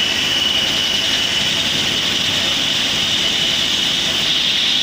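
Small CNC lathe turning a metal part, its spindle and chuck spinning as the tool cuts and throws off chips. Steady machine noise with a constant high whine.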